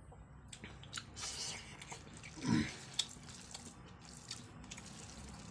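Fingers mixing rice and fish curry on a plate and eating from it: a run of small wet squelching clicks, with one louder short sound about halfway through.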